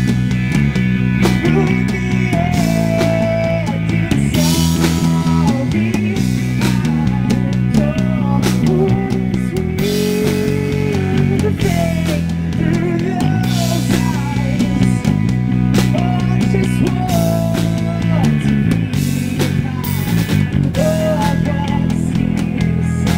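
A rock band playing live: a male singer singing into a handheld microphone over electric guitar, electric bass and a drum kit with cymbals, in long held, sliding vocal notes.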